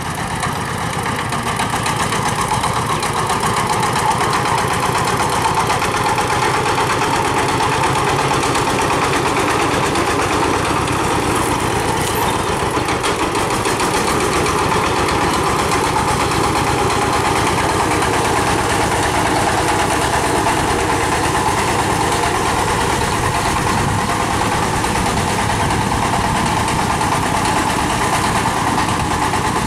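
Chinese single-cylinder diesel engine of a home-built mini truck chugging steadily as the overloaded truck drives past, growing louder over the first few seconds.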